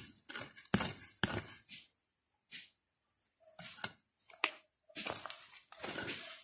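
A small hand pick chopping and scraping into dry soil and leaf litter, digging out a metal-detector target: a run of irregular sharp strokes, with a lull of about a second and a half near the middle.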